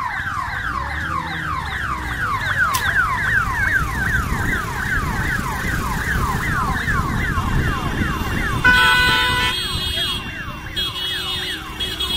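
Electronic siren sounding in rapid falling sweeps, about three to four a second, over the running of motorcycle engines. About eight and a half seconds in, a vehicle horn blares for about a second, the loudest sound, and the siren sweeps are fainter after it.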